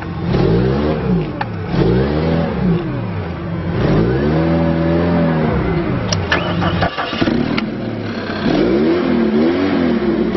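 Hyster S50XM forklift's LP-fuelled engine revved up and let back down several times, one rev held longer about four seconds in and quicker dips and rises near the end. A few sharp clicks and knocks come in the middle.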